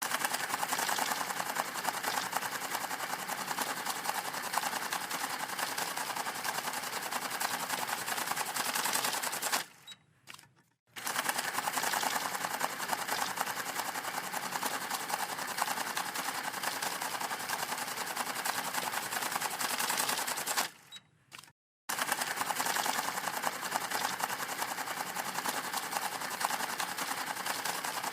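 Banknote counting machine riffling through a stack of bills, a fast, continuous flutter of rapid clicks. It runs in three stretches of about ten seconds each, stopping briefly twice between batches.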